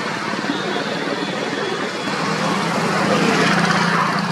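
Diesel locomotive running, with a steady low engine hum that comes in and grows louder about two seconds in.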